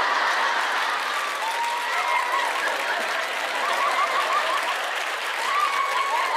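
Live audience applauding and cheering, with a few voices whooping over it now and then.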